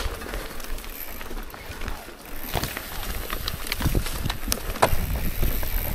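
Mountain bike descending a rough, grassy singletrack: tyres rolling over dirt and loose rocks under a steady low rumble, with irregular clicks and knocks from the bike rattling over the bumps, busier in the second half.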